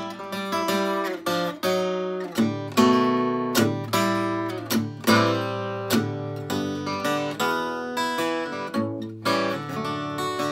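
Solo acoustic guitar playing an instrumental break: a run of plucked melody notes over a steady bass line, without singing.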